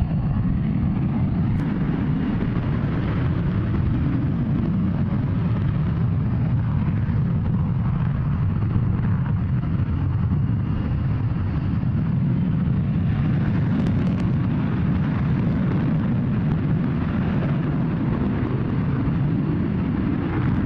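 Jet aircraft engine noise: a steady, heavy low rumble with a fainter hiss above it.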